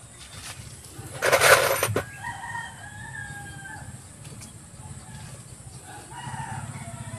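A rooster crowing: one long call that starts loud and harsh about a second in and trails off with a slight fall in pitch, and a second call near the end.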